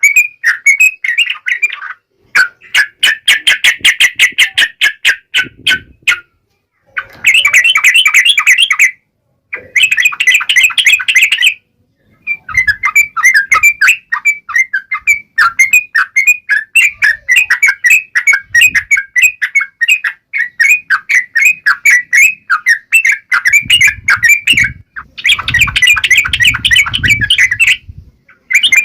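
Yellow-vented bulbul (trucukan) singing its wild-type song: loud, fast chattering runs of notes in phrases of a few seconds, broken by short pauses.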